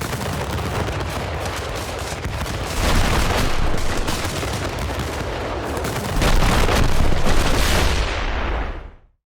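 A rapid, unbroken barrage of punch-impact sound effects, like a machine gun. It grows louder about three seconds in and again about six seconds in, then cuts off suddenly.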